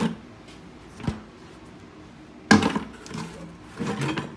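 A plastic bucket holding pointing tools being handled and hung on a wooden stepladder's hook: a sharp knock about a second in, then a louder clatter and rattle about two and a half seconds in, and a smaller one near the end.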